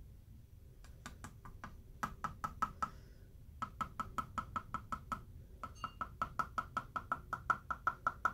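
Small plastic cup turned upside down and dragged over a painted rock, chattering in runs of sharp, ringing ticks about five a second, with two short breaks.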